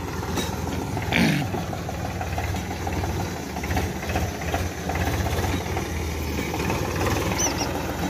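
Powertrac Euro 50 tractor's diesel engine running steadily under load while driving a rotavator through the soil, with a short louder burst about a second in.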